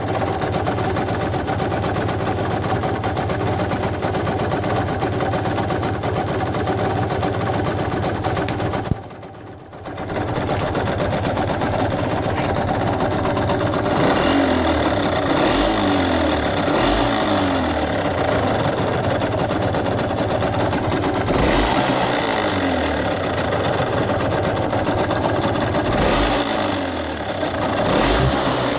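Yamaha TDR's two-stroke single-cylinder engine running steadily, then revved up and down several times in the second half, with a brief drop in sound about nine seconds in. The owner is unsure whether this engine noise is normal.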